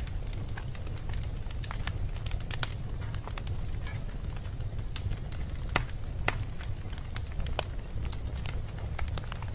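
Open cooking fire crackling: irregular sharp pops and snaps over a steady low rumble.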